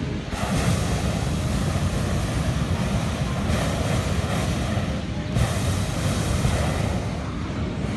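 Hot air balloon propane burner firing: a loud, steady rushing noise with a deep rumble, dipping briefly about five seconds in.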